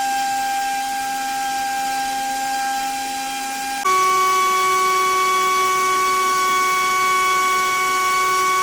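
Small 3.5-inch drone propeller on a brushless motor on a thrust test stand, spinning at constant speed with a steady whine. About four seconds in, it switches abruptly to a louder run at a different pitch, as the propeller works at the higher thrust setting.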